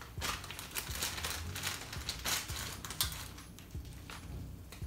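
Plastic instant-ramen packet crinkling and tearing as it is opened and handled: a run of irregular crackles.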